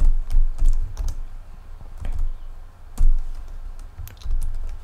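Computer keyboard typing: irregular keystrokes with soft thumps, one stroke clearly louder about three seconds in.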